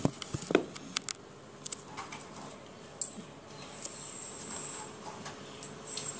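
Eggs being set into a metal pan of water, with scattered light clicks and knocks as they touch the pan and each other. A thin, high steady whine comes and goes in the second half.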